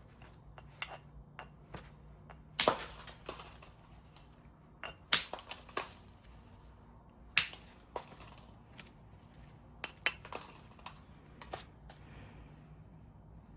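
Flintknapping by percussion: a stone piece struck on its edge platforms to drive off flakes, giving sharp cracks and clicks at uneven intervals, about half a dozen loud strikes among many lighter taps.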